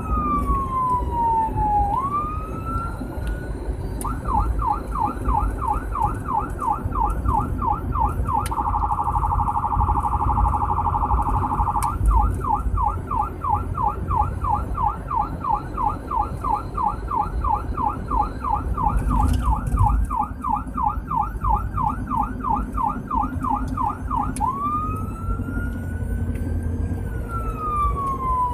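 Electronic emergency-vehicle siren heard from inside the responding vehicle's cab. It runs a slow wail falling and rising, then switches to a fast yelp, a few seconds of much faster warble, the yelp again, and back to the slow wail, over the low rumble of engine and road.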